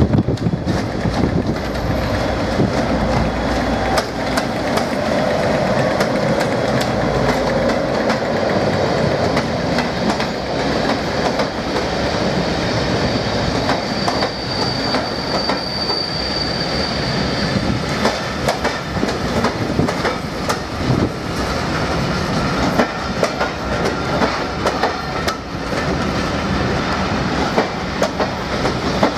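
Passenger train rolling through the station, its wheels clicking over the rail joints, with a thin high wheel squeal about halfway through.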